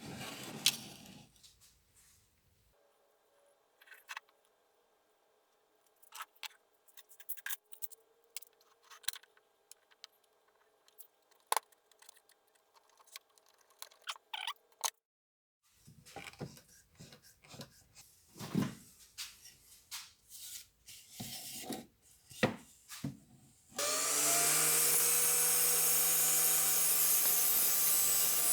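Scattered knocks, taps and clicks of particle-board pieces and tools being handled. About 24 s in, an electric power tool starts and runs steadily and loudly, working the particle board.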